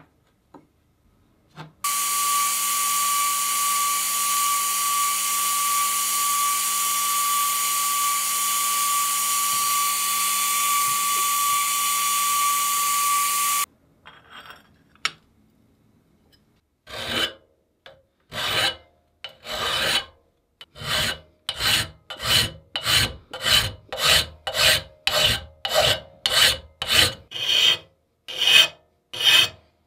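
A loud steady machine noise with a high whine starts suddenly and cuts off suddenly after about twelve seconds. After a short pause, a hand file rasps across a small metal nut clamped in a steel bench vise. The strokes come about one a second at first and quicken to about two a second.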